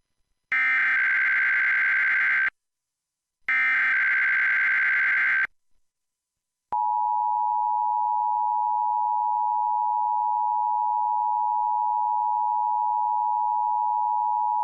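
Emergency Alert System test tones: two roughly two-second bursts of the buzzy digital SAME header, then about a second later the steady two-tone EAS attention signal, held for about eight seconds before it cuts off.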